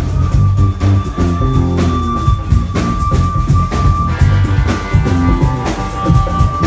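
Loud live rock music over a PA, with heavy bass, drum hits and a high note held steadily through most of it.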